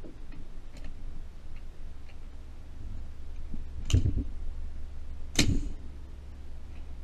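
A few light ticks and two sharp knocks, about a second and a half apart, as a rifle is handled and shifted on its rest bag on a wooden shooting bench.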